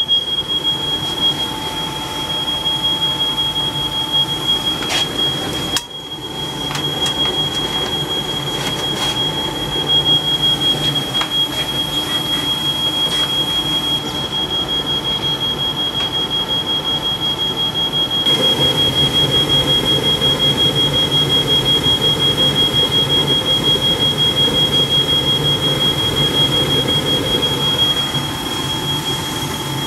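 A smoke alarm sounds a steady, shrill high tone, set off by smoke from the factory oil burning off a new gas furnace on its first firing. Under it the Ruud 80+ gas furnace runs with a dense low rumble from its burner and blower, which grows louder about 18 seconds in.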